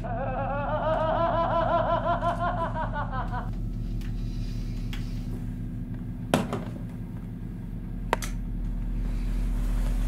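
A man giggling for about three and a half seconds over a low steady hum, then two sharp clicks, about six and eight seconds in.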